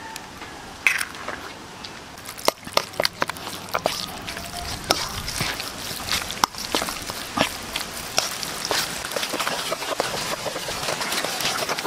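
Metal spoon stirring and mashing raw ground-pork siomai filling in a stainless-steel bowl: irregular clinks and scrapes of spoon on steel with the wet squish of the mixture, getting busier and more continuous in the second half.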